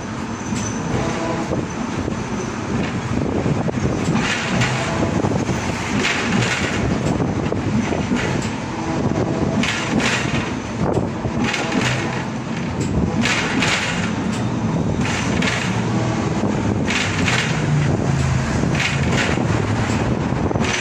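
Hong Kong double-decker tram heard from inside on the upper deck as it runs along the street: a steady low rumble of wheels on rail, with frequent irregular rattles and clatters from the car body.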